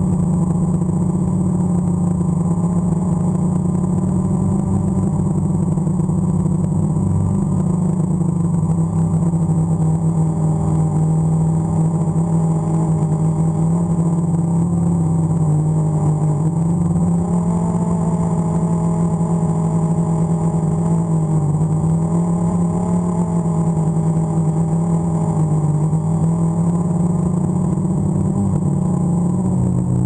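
DJI Phantom quadcopter's electric motors and propellers humming steadily, heard close up from the camera on board, the pitch wavering up and down as the motors speed up and slow down in strong wind.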